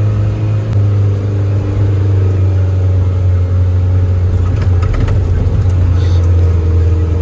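Off-road vehicle engine running steadily with a low drone, with a few light clicks about halfway through.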